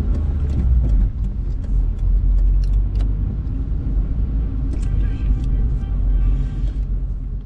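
A car driving slowly along a city street, heard from inside the cabin: a steady low rumble of engine and tyres, with scattered small clicks and rattles.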